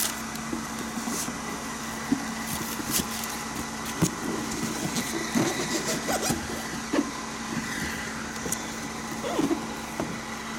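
Light rustling and scattered knocks from a cardboard shoe box and its tissue paper being handled, over a steady background hum.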